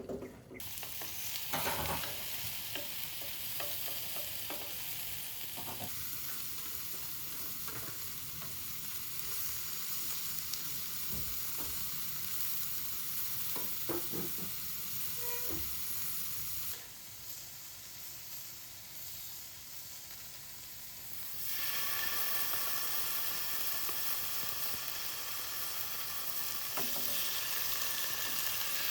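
Food sizzling as it fries in a hot pan, with a few knocks of a utensil stirring it. The sizzle drops for a few seconds past the middle, then picks up again.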